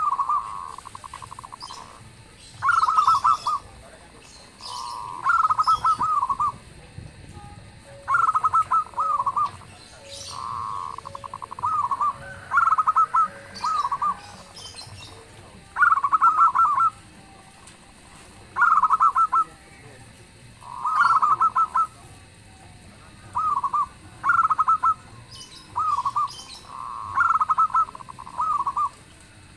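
Zebra doves (local perkutut) cooing: a series of rolling, stuttered coo phrases, each about a second long, repeated every two to three seconds.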